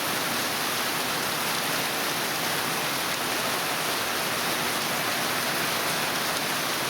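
Heavy monsoon rain pouring down in a steady, unbroken hiss.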